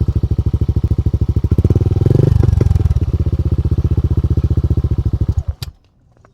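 Motorcycle engine idling with an even, full-sounding pulse through a JVT V3 adjustable exhaust pipe with its valve partly closed. It revs briefly about two seconds in, then cuts off near the end, followed by a single click.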